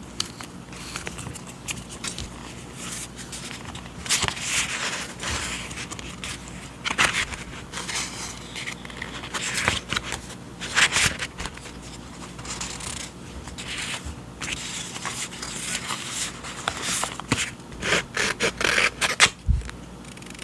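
Paper journaling supplies and their packaging handled close to the microphone: irregular rustling, crinkling and scraping strokes, busier and louder from about four seconds in, with a soft low thump near the end.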